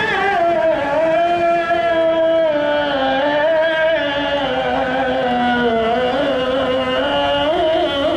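Aircraft engine droning with a wavering pitch that slowly falls across several seconds and rises again near the end.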